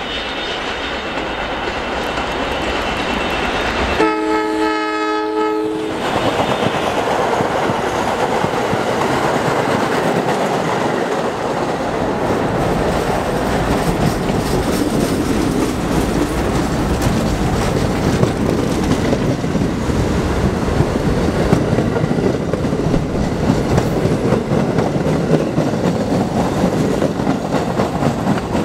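Staten Island Railway R44 subway train approaching and running past, its horn sounding once for about two seconds about four seconds in, then steady rail and wheel noise with wheels clattering over the rail joints.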